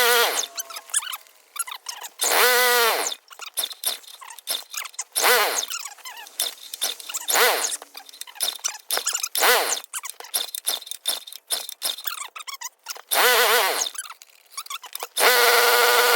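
Honda generator's recoil starter pulled over and over, about seven pulls a couple of seconds apart, each a rising-and-falling whir of the rope pulley, with clicks between. The choke is on and the engine does not catch.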